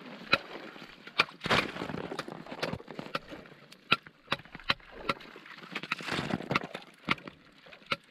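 Steel ice chisels chopping and chipping ice to reopen a fishing hole: about a dozen sharp, irregular knocks, with crunching scrapes of broken ice in between.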